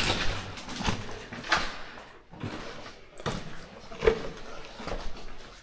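Irregular footsteps, scuffs and knocks of people walking, a step or so every half second to second.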